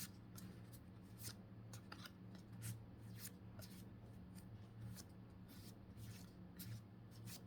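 Faint, irregular clicks and rustles of Pokémon trading cards being slid and flipped through in the hand, over a low steady hum.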